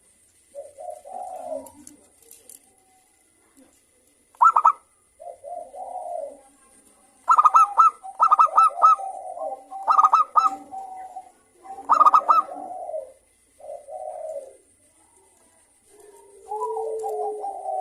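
Zebra doves (perkutut) cooing: soft low coos every second or two, broken in the middle by several quick runs of rapid staccato notes, the bird's full song.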